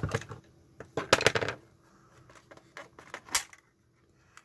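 Plastic case of a handheld multimeter being handled and pried apart: clicks and clatter, loudest in a cluster about a second in, with one sharp click a little past three seconds.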